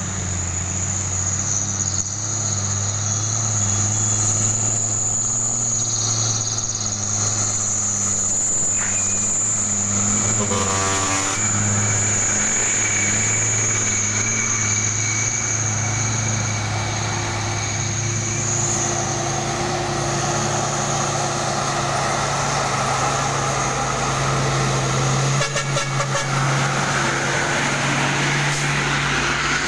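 Heavy old truck engines labouring up a hill climb, their low running growing louder as a loaded truck passes close near the end. A high steady insect buzz runs through the first part, and a short rapid pulsing sound comes about ten seconds in.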